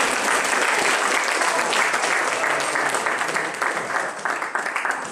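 Audience applauding, the clapping thinning and fading near the end.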